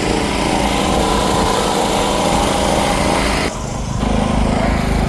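A small engine running steadily, with an abrupt change in its sound about three and a half seconds in.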